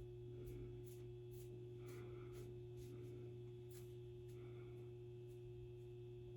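Quiet room tone with a steady low electrical-sounding hum, and faint, light ticks or rustles scattered through it.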